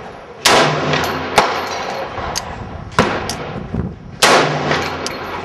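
.50 Beowulf rifle firing through a .50 BMG muzzle brake: two loud shots about four seconds apart, each with a long echoing tail. Two shorter, sharp cracks fall between them.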